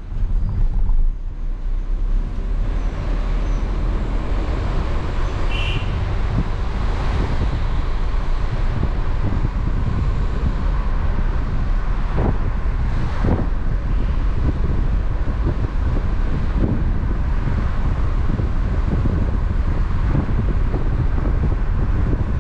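Car driving along a road: steady tyre and road rumble with wind noise, and two short knocks about twelve and thirteen seconds in.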